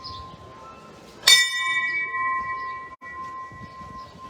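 A bell struck once, about a second in, then ringing on with a clear, steady tone that slowly fades. The hum of the previous strike is still sounding at the start.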